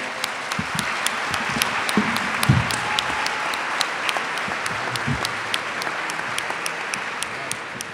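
A large seated audience applauding steadily, with a few sharp nearby claps standing out from the mass of clapping and a couple of low thumps.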